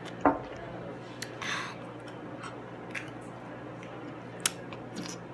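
Close-miked eating sounds: a loud bite about a quarter second in, a short crackling chew about a second and a half in, and scattered sharp mouth clicks, over a steady low background hum.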